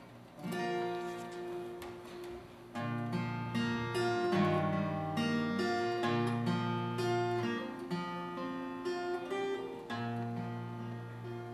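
Acoustic guitar played solo, picking and strumming slow sustained chords as the introduction to a hymn.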